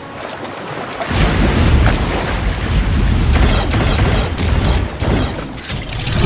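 Film action sound mix: a deep rumbling boom swells in about a second in and carries on under dense effects and score, with a few sharp hits along the way.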